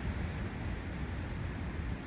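Forest brook water flowing, a steady rushing noise with a low rumble underneath.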